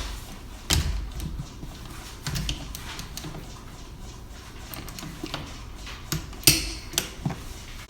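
Wrench and socket working on the C-mount bolts as they are tightened: a handful of irregular metal clicks and knocks, the loudest about six and a half seconds in.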